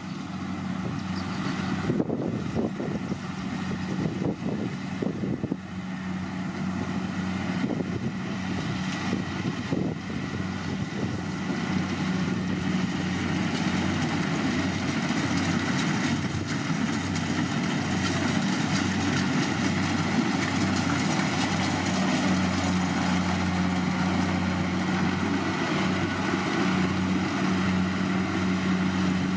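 Kubota DC-70G Plus rice combine harvester at work cutting and threshing rice: its diesel engine keeps up a steady hum under a mechanical rattle. Irregular knocking and rattling comes through in the first third, then the machine sound evens out and grows slightly louder.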